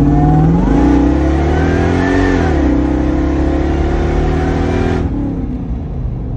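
Supercharged Tundra 5.7-litre V8 accelerating hard, heard from inside the cabin. The engine note climbs, dips briefly about two and a half seconds in, then holds, and drops back about five seconds in.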